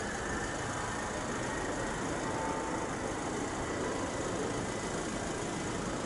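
Distant Boeing 737-800 turbofan engines (CFM56-7B) running steadily: an even rumble with a faint high whine over it.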